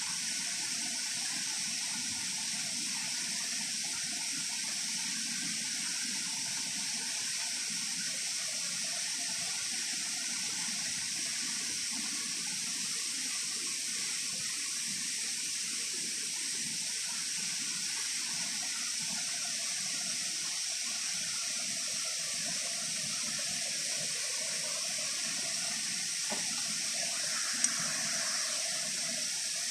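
Steady rushing of a waterfall, an even, unbroken wash of falling water.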